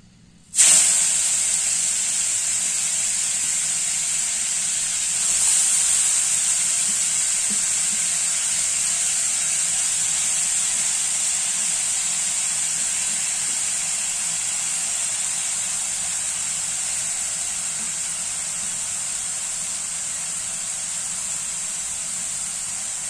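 Grated carrot sizzling in hot ghee in a kadai. The loud sizzle starts suddenly about half a second in, swells again around five seconds, then slowly eases off.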